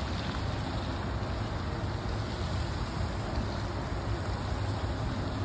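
Steady outdoor wind rumbling and buffeting on a phone microphone, with no distinct events.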